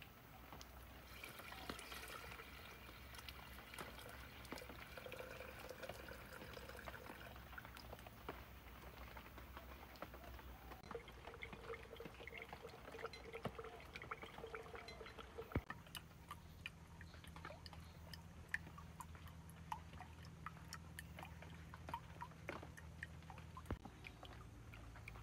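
Water poured from a clay cup into a bamboo-tube water filter, then faint scattered drips as filtered water falls into a clay cup below.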